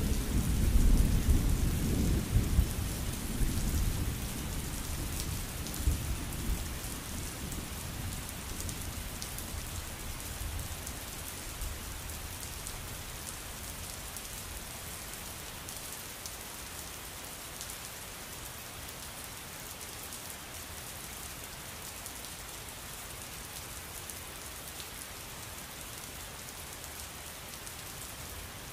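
Steady rainfall hissing, with a deep rumble of thunder at the start that fades away over about ten seconds, leaving the rain alone.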